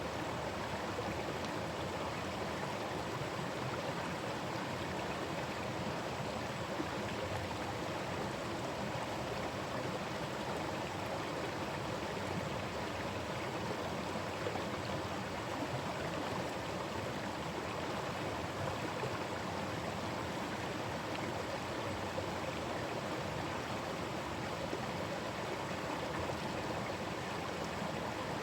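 Forest stream running over rocks: a steady, even rush and babble of flowing water.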